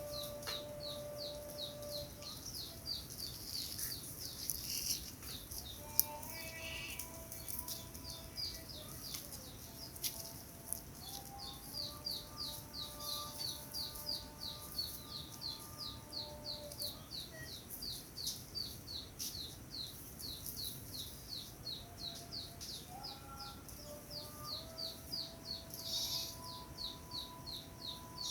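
A bird chirping over and over in a steady rhythm, short high notes about two to three a second, with faint held tones in the background.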